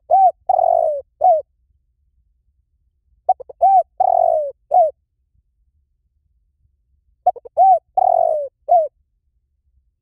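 Spotted dove cooing: the same phrase three times, about every four seconds, each a couple of quick short coos, a longer falling coo and a short final coo.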